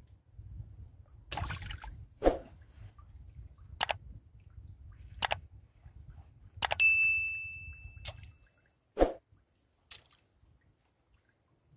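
Wet fishing net being handled in a small wooden boat: water drips and trickles off the mesh, with about eight sharp knocks and taps against the boat spread through it. A bell-like chime rings for about a second, a little before seven seconds in.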